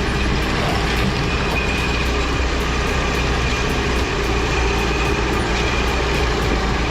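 A heavy machine's engine running steadily, with a faint steady whine above it.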